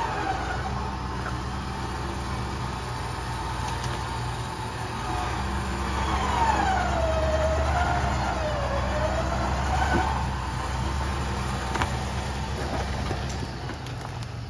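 Chevrolet Suburban's engine running under load as it crawls up a steep, rocky off-road climb, pulling harder from about five seconds in. A whine rides over it, gliding down and back up in pitch for a few seconds.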